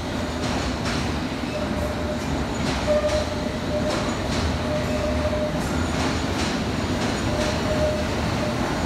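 London Underground S Stock train moving slowly along the platform: a steady rumble with wheels clicking over rail joints about once a second, and a thin squeal that comes and goes.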